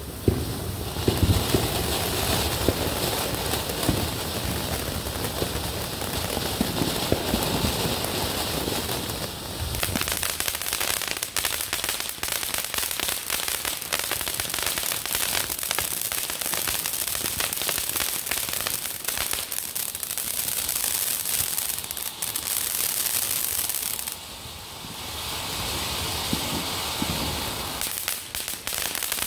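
Two ground fountain fireworks burning at once: a steady rushing hiss of sparks, turning into dense crackling about ten seconds in. The sound drops briefly about three-quarters of the way through, then picks up again.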